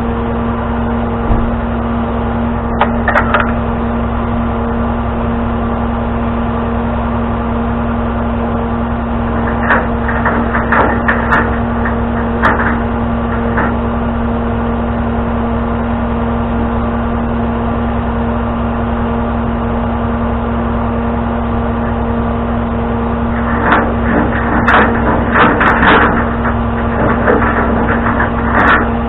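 Tow truck's engine running at a steady idle, with scattered metallic clanks and knocks in short clusters, a few near the start, several in the middle and a busier run near the end.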